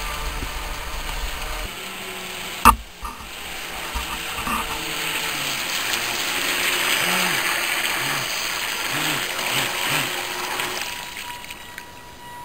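Electric RC speedboat running across the water at a distance: a whirring hiss of motor and spray that swells and then fades near the end. A single sharp click about three seconds in is the loudest sound, after a low rumble in the first couple of seconds.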